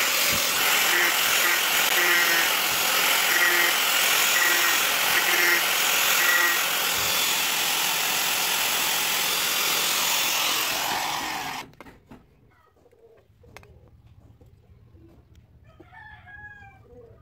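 Electric angle grinder with an abrasive disc sanding a wooden knife handle, running loud and steady, then switched off and stopping abruptly about twelve seconds in. Afterwards there are faint handling clicks and a bird calls near the end.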